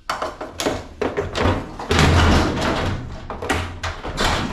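Repeated knocks, thuds and clattering of metal and plastic parts being pulled and handled while an appliance is taken apart for scrap, loudest in a burst of rattling about two seconds in.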